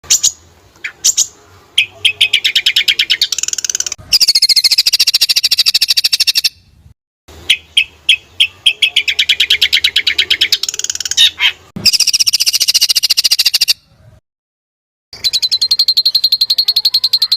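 Recorded songbird song: a few sharp separate notes, then fast rattling high-pitched trills in phrases two to three seconds long. The same sequence repeats almost identically after short gaps of silence, as in a looped recording.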